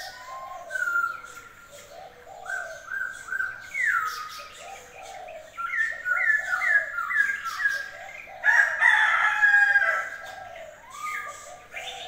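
Several captive aviary birds calling over one another in repeated short falling notes, with a louder, longer burst of calling about eight and a half seconds in.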